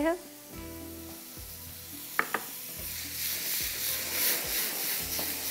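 Chopped seekh kebab pieces sizzling in hot oil in a frying pan on a gas stove. The sizzle builds from about three seconds in, after a sharp knock of the pan about two seconds in. The pieces are watery, which makes the oil spit and smoke.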